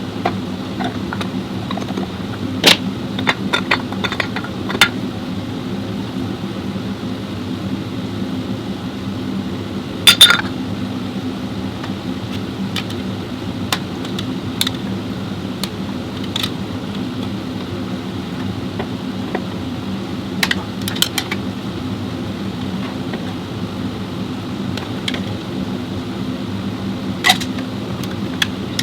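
Workshop work on metal parts: scattered metallic clinks and knocks, the loudest about ten seconds in, over a steady machine hum.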